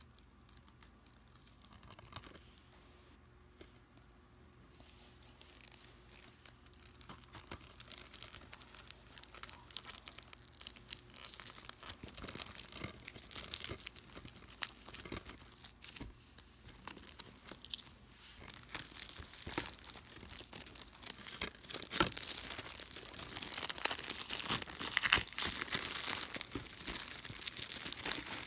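Plastic wrapping on a DVD case crinkling and tearing under the fingers. It is faint at first, then turns into dense crackling that grows louder and busier over the second half.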